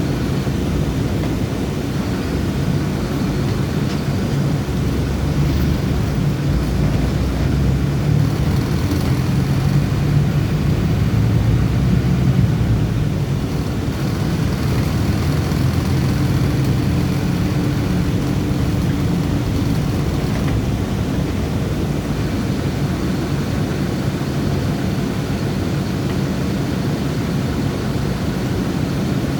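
Bus engine running with steady road noise while driving, the engine swelling a little around ten seconds in and then easing off.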